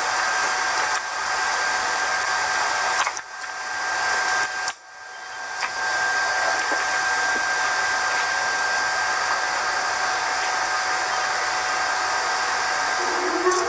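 Blower sound of a JR Freight EH200 electric locomotive, added as a sound effect: a steady whooshing hum with two held tones. It drops out briefly about three and five seconds in, then carries on.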